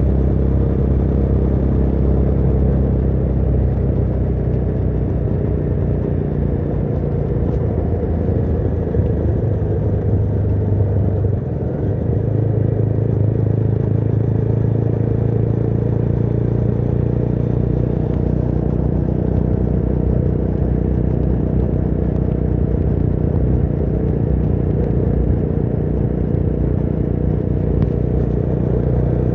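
Motorcycle engine running steadily while riding, under road and wind noise. Its pitch shifts a few times, with a short dip in level about a third of the way through.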